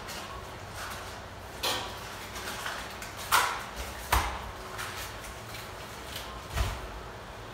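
Chicken pieces with bell pepper and onion sizzling in a stainless steel wok: a steady hiss broken by four sharp pops or knocks, the loudest about a third of the way in.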